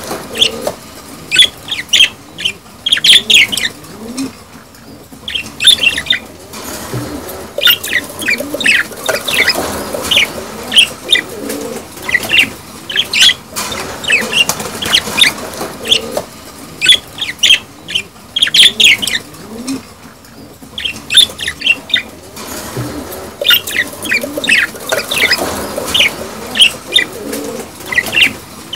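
A flock of budgerigars chattering: clusters of quick, sharp chirps and warbles broken by short lulls every few seconds. The uploader offers this chatter as budgie mating calls that stimulate breeding.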